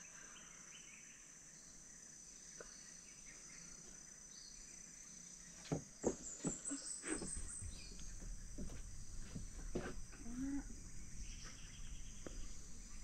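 Forest insects shrilling steadily at a high pitch, with a short rising run of chirps about six seconds in. From about halfway, a series of knocks and clicks from nearby handling.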